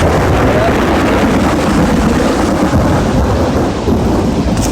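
Loud, steady rumble of a severe thunderstorm, starting and stopping abruptly.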